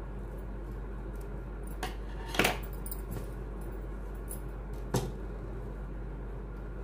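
A few sharp clicks and clinks of small hard craft items being handled, the loudest about two and a half seconds in and another about five seconds in, over a steady low hum.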